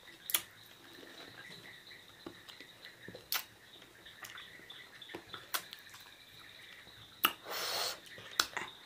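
Someone eating: scattered sharp mouth clicks and smacks, with a short breathy hiss a little after seven seconds in. A faint steady high tone runs underneath.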